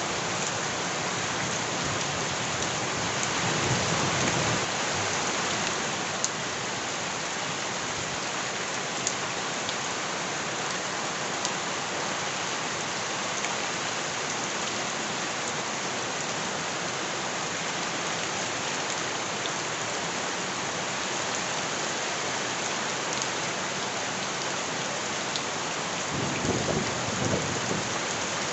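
Steady heavy rain with a few sharp drop ticks, swelling twice with a low rumble, about four seconds in and again near the end.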